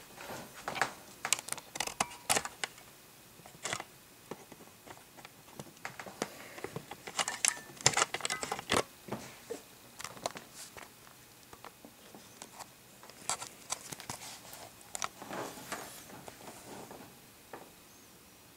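Camera handling noise: scattered clicks, taps and short rustles, bunched in a few clusters, as the camera is moved by hand.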